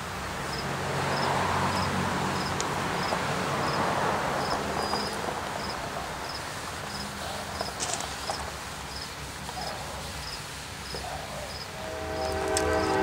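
A cricket chirping at an even pace, about one short chirp a second, over a steady low hum. For the first few seconds a rag rubs soft and scratchy across a plastic headlight lens. Sustained musical tones come in near the end.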